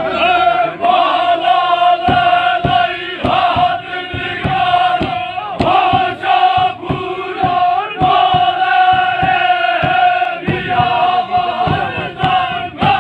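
Gurjar folk song: a group of men singing and chanting together over one steady held note, with drum strokes about two to three a second from about two seconds in.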